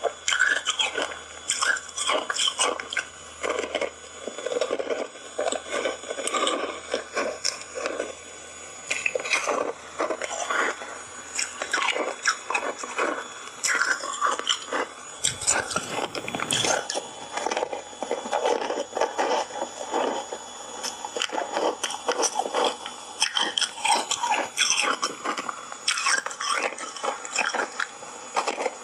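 Close-up biting and chewing of ice bars coated in matcha powder: a dense run of sharp, crackly crunches as the ice breaks between the teeth, with a brief low thud about halfway through.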